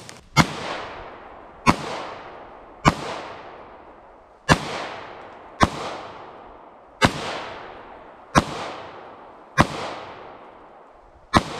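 Nine 9mm pistol shots from a Beretta M9A3 firing 124-grain factory loads, fired slowly and steadily about one every 1.2 to 1.8 seconds. Each crack trails off in a long echo through the woods.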